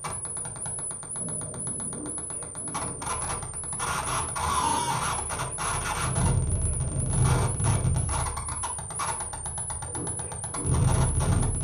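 Live improvised electronic noise from a tabletop rig of mixer, effects pedals and patch cables: a high whistling tone warbling about twice a second over dense crackling clicks. A heavy low rumble swells in about halfway through and again near the end.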